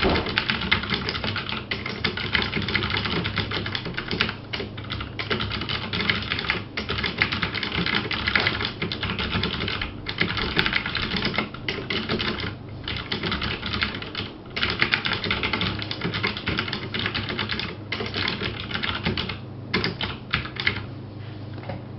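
Fast, continuous typing on a Cherry MX 3800 mechanical keyboard with Cherry MX Blue switches, each keystroke giving the switch's sharp click and the keycap's clack. The stream breaks off briefly several times and stops about a second before the end.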